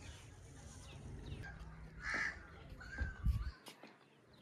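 A bird calls once about two seconds in, then gives a shorter call about a second later, over a low rumble that cuts off suddenly a little after three seconds.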